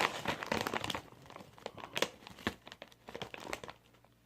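Crinkling of a chip bag being handled: a dense run of crackles in the first second, then sparser ones.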